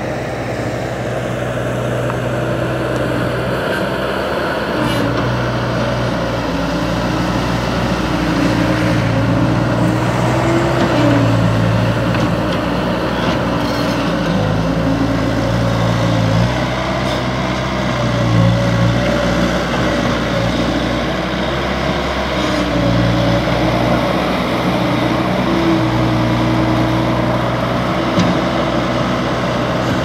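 Bobcat S185 skid-steer loader's diesel engine running continuously, its pitch shifting up and down again and again as it works.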